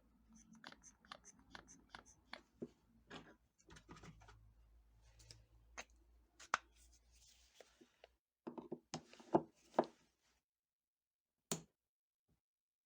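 Light clicks and knocks of tools and small parts being handled, with a denser run of knocks about nine seconds in and one sharp click near the end.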